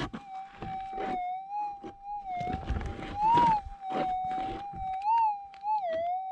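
Gold metal detector's steady threshold hum through its speaker. It swells and rises in pitch a little past three seconds and again around five seconds, then dips, as the coil passes over a target in the dug hole. Short scrapes and crunches of gravelly soil sound between.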